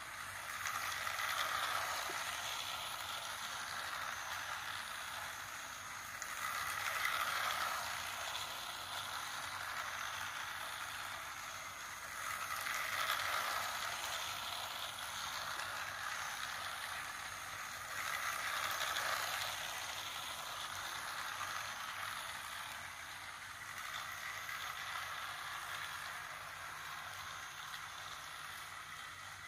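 Battery-powered toy train running on plastic track with a steady rattling whir. It grows louder about every six seconds as it comes round the loop past the microphone.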